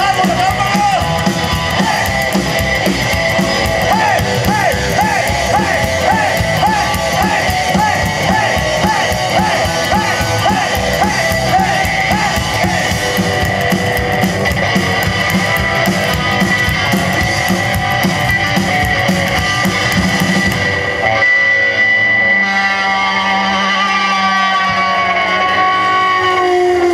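Rockabilly band playing live: electric guitar lead over drums and bass. About 21 seconds in the drums and bass stop and held guitar notes ring on, wavering in pitch.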